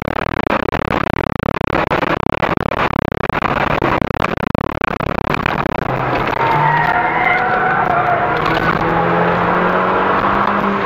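Interior noise of a VW Golf V GTI on track: rushing road and wind noise at high speed, then from about six seconds in a steady engine note under a thin, wavering tyre squeal as the car slows hard into a corner.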